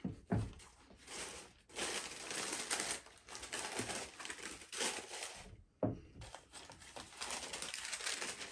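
Tissue and paper packing crinkling and rustling as sneakers are lifted out of their box and the paper stuffing is pulled out of them, in bursts. There are a couple of soft thumps near the start and another about six seconds in.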